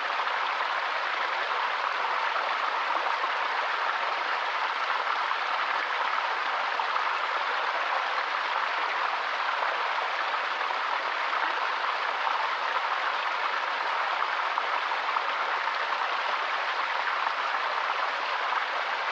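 Steady white noise: an even, unbroken hiss that never changes.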